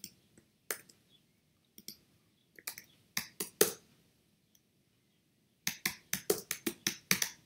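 Typing on a computer keyboard: a few scattered keystrokes, then a quick run of keystrokes in the last two seconds.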